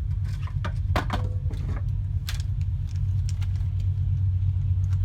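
A steady low hum with scattered light clicks and taps from small objects being handled.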